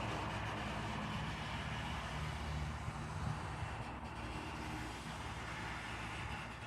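Steady outdoor background noise: a continuous low rumble with an even hiss above it, and no distinct events.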